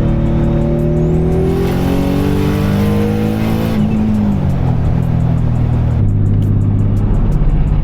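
Engine-swapped Nissan Silvia S15 accelerating hard through a pull, its engine note rising steadily for about four seconds, then dropping as the throttle closes, and settling into a steady cruise. The driver takes the pull for an odd throttle problem, which he suspects comes from a kinked ECU harness.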